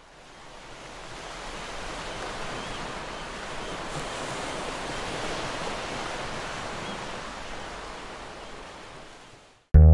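An even rushing noise, like ocean surf, that swells in over the first couple of seconds and fades away near the end.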